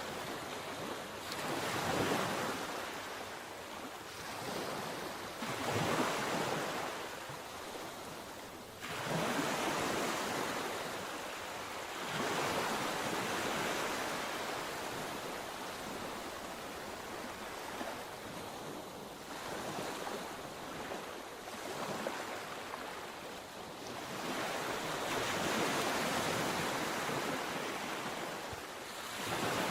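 Sea waves breaking and washing up the shore, surging every few seconds over a steady hiss of surf.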